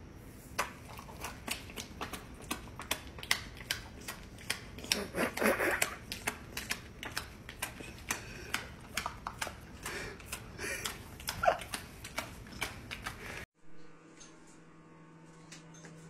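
A dog's claws clicking on a hardwood floor: rapid, irregular sharp clicks, several a second, with a brief higher-pitched sound twice. The clicking cuts off suddenly near the end, leaving a faint steady hum.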